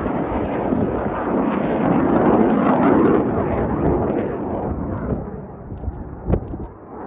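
Jet aircraft flying past: loud, steady engine noise that fades away over the last few seconds, with a short sharp thump about six seconds in.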